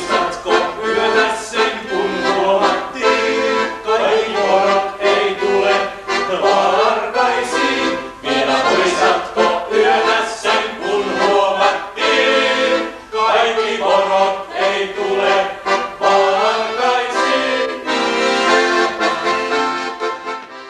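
Accordion playing a lively traditional-style tune in chords and melody, dying away right at the end.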